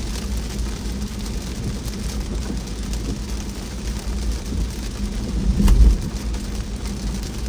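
Car driving on a wet road in the rain: steady low road and engine noise with the hiss of rain and tyres on water. A single louder thump about three-quarters of the way through.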